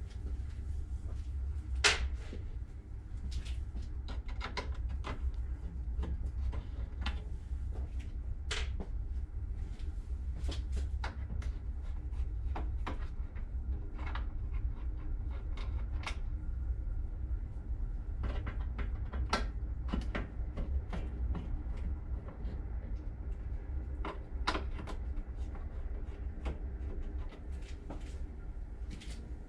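Scattered clicks and light knocks of a Phillips screwdriver and small screws being worked out of a car's headlight housing, with one louder knock about two seconds in, over a steady low hum.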